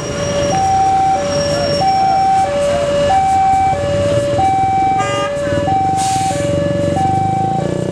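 Wantech electric railway level-crossing warning alarm sounding a steady alternating high-low two-tone, about one high-low pair every 1.3 seconds, signalling an approaching train, with road traffic rumbling underneath.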